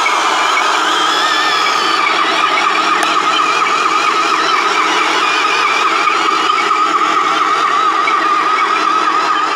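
Huina radio-controlled toy excavator's electric motors and gearing running, a steady high whine that wavers slightly in pitch.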